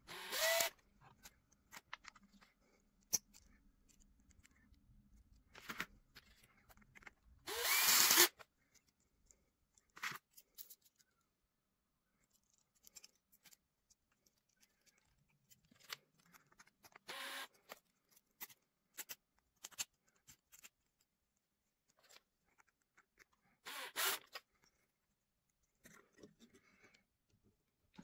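A power drill spinning a stainless hose clamp's worm screw in about four short bursts, each under a second and rising in pitch as the motor speeds up. The loudest burst comes about eight seconds in. Faint metal clicks of the clamp being handled fall in between.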